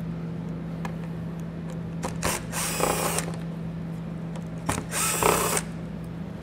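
Red cordless driver with a small socket spinning out splash-guard screws: two short whirring runs of about a second each, some two and five seconds in, with light clicks of the socket and screws between.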